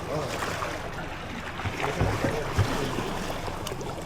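A small boat's motor running steadily on the open sea, with wind and water noise around it. Two short thumps come about two seconds in.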